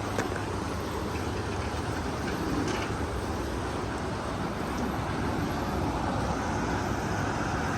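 Steady rumble and hiss of road traffic, with a few faint clicks near the start.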